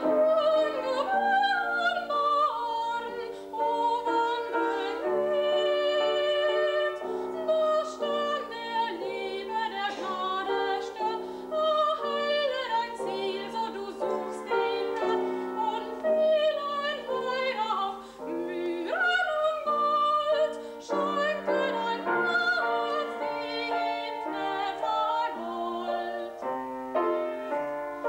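A young woman singing a solo song in classical style with grand piano accompaniment, her held notes wavering with vibrato.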